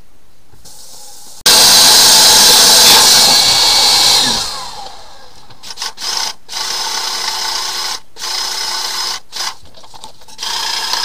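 A drill spinning a Flexshaft drain-cleaning cable inside a clogged kitchen sink drain pipe. It starts with a loud harsh burst of about three seconds that winds down with a falling pitch, then runs steadier and quieter in bursts with several brief stops.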